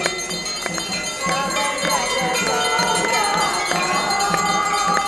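Many temple bells clanging nonstop, their ringing tones overlapping, with many voices singing the aarti hymn over them.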